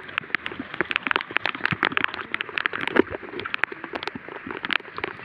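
Shallow muddy water splashing and sloshing as people wade and grope with their hands through a flooded rice paddy, a dense run of small irregular splashes and drips.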